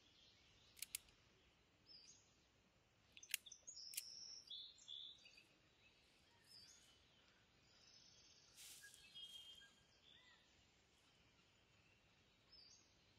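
Faint woodland ambience, mostly near silence, with scattered short bird chirps. A few sharp clicks come in the first four seconds, two close together about a second in.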